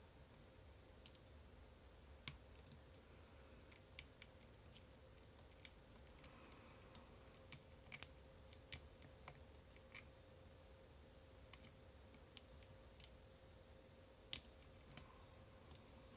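Faint, irregular clicks and ticks of lock picks working in the slider core of an On Guard bicycle U-lock, over a faint steady hum. The clicks come a few at a time at uneven intervals, with the sharpest ones about halfway through and near the end.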